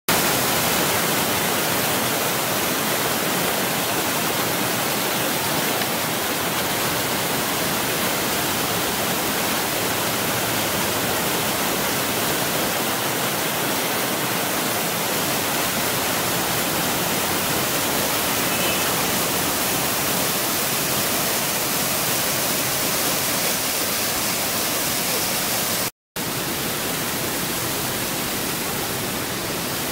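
Waterfall roaring as it cascades over rocks, a loud steady rush of water. Near the end it cuts out for a moment, then resumes unchanged.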